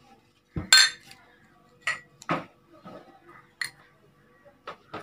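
A spoon clinking several times against a stainless steel mixing bowl and a small glass bowl as spice is scooped and tipped in. The loudest clink, with a short ring, comes about a second in.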